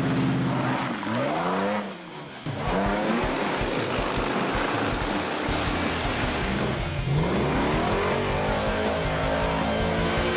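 Modified off-road 4x4 engines revving, their pitch sweeping up and down. There is a short lull about two seconds in, then a long rising rev from about seven seconds in.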